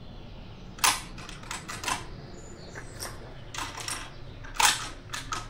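Metallic clicks and clacks of a Mauser bolt-action rifle being loaded and its bolt worked, with two sharper clacks about a second in and near the end.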